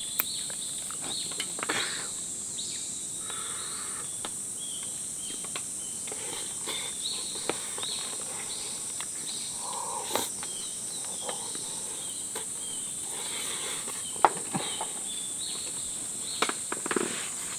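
Forest ambience: a steady high insect buzz, with scattered short chirps and a few sharp clicks and knocks, the loudest about fourteen seconds in.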